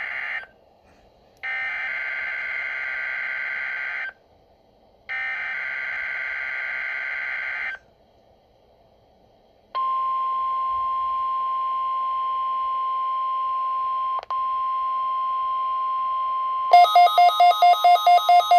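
NOAA Weather Radio SAME header data bursts, a harsh electronic screech heard as the tail of one burst and then two more of about three seconds each, with radio hiss in the gaps. Then the steady 1050 Hz weather radio warning alarm tone holds for about seven seconds, with one brief dropout. Near the end a rapid pulsing beep takes over, about four beeps a second.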